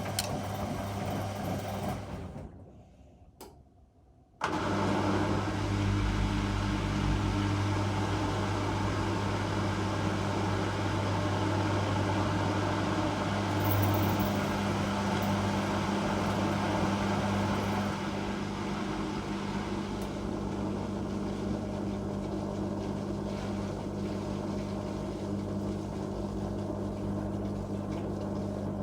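Whirlpool Indiana 1400 washing machine running with a steady motor hum. It dies away about two seconds in, stays almost silent for a couple of seconds, then starts again abruptly and runs steadily.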